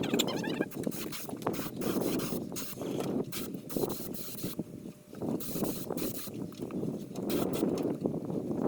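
Air-powered spray gun hissing in short on-off bursts as coating is sprayed onto a truck frame, over a steady low rumble.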